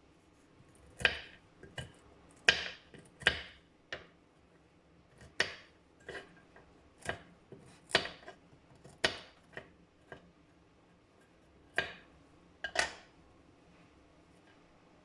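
Kitchenware being handled: about fifteen sharp, irregularly spaced knocks and clinks, some ringing briefly, like dishes and utensils being set down and moved.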